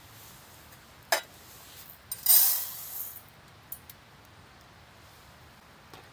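Camp cookware and utensils being handled: a sharp clink about a second in, then a louder short rushing burst that fades over about a second, and a few light ticks.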